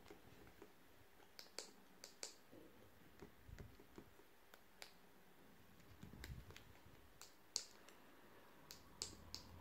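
Faint, irregular small clicks and light taps, about a dozen spread out, with a couple of soft low knocks, from handling the sat nav's small plastic parts.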